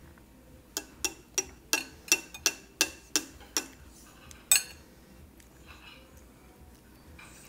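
Metal spoon clinking repeatedly against a ceramic soup bowl, about three quick clinks a second for around three seconds, then one louder clink a second later.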